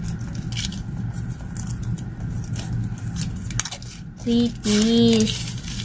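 Scattered light clicks and rustles of an iPhone charger adapter and its plastic wrapping being handled, over a steady low hum. A short voiced sound comes about four seconds in.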